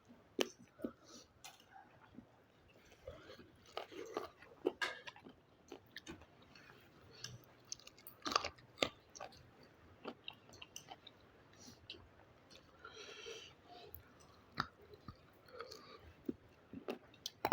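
Person chewing and biting into fried chicken feet, with scattered short crunches and clicks.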